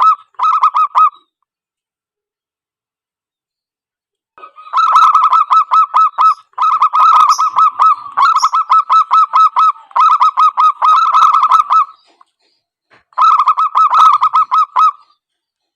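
Zebra doves cooing in rapid strings of short, evenly repeated notes. The calls come in bursts with pauses between: a short one at the start, a long run from about four to twelve seconds in, and another near the end.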